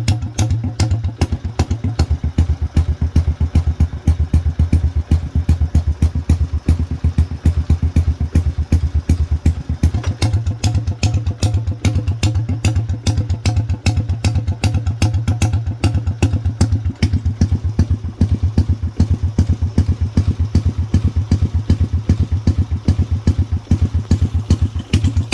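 Motorcycle engine idling steadily through an aftermarket exhaust canister, with a regular exhaust pulse.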